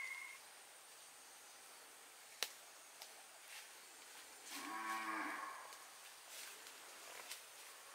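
A cow moos once near the middle, a single call of about a second. A sharp snap comes a couple of seconds before it.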